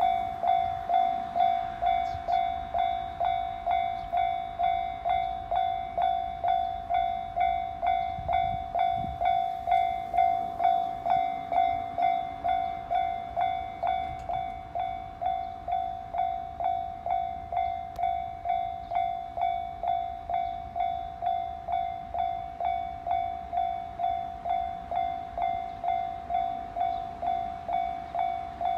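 Japanese railway level-crossing warning bell ringing at an even pace of about two strokes a second, each stroke fading before the next.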